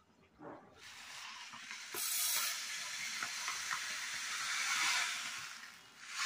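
Granulated sugar poured from a container into a stainless steel pot: a steady hiss of falling grains that starts about a second in and runs for about five seconds.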